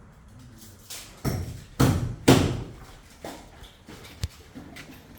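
Footsteps thudding as a person walks: three loud steps about half a second apart a second or two in, then softer steps and a single sharp knock near four seconds.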